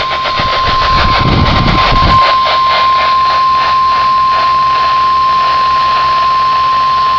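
NOAA Weather Radio's 1050 Hz warning alarm tone: one steady, unbroken pitch, received over a weather radio through heavy static hiss. Low rumbling thumps sit under it for the first two seconds.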